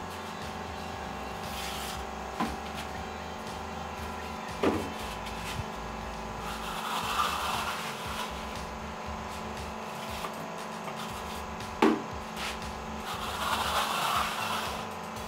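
Hand plastering trowel scraping fine finishing plaster across a wall in two longer sweeps, with a few sharp knocks of the tool in between, over a steady background hum.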